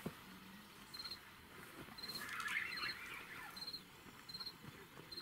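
A cricket chirping: short, high, pulsed chirps repeating evenly about every two-thirds of a second. Around two to three seconds in there is a louder, busier patch of higher sound.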